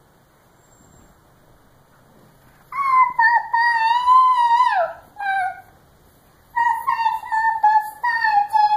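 A toddler's high-pitched drawn-out squeals: a long held note that drops off at its end, a short one, then another long one that also falls away.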